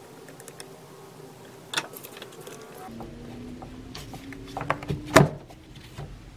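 Flathead screwdriver working the hose clamp screw on a car's air intake tube, a few scattered clicks. Then the plastic intake tube is handled and worked loose by hand, a cluster of knocks and clacks with a sharp one about five seconds in, the loudest.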